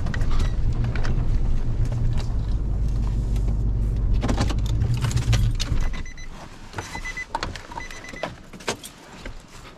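Pickup truck driving on a dirt road, a steady low rumble of engine and tyres that drops away about six seconds in as the truck stops. Then the driver's door opens with latch clicks and a repeating high electronic door-open chime.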